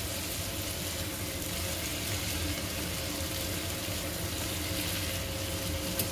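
Beef meatballs and chopped onion sizzling steadily in a frying pan while being stirred with a silicone spatula, with one sharp tap near the end.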